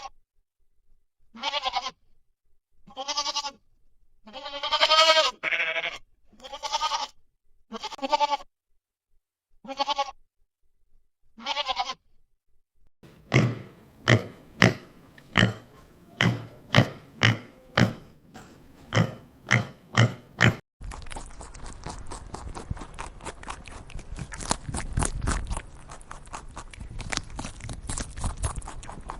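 Bleating livestock: about eight separate pitched calls, each about a second long, spaced a second or two apart. Then a quicker run of short, deeper calls at about two a second, and after a cut at about 21 seconds a steady noisy stretch full of small clicks.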